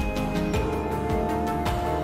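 Background music with a steady beat, about four beats a second over held notes.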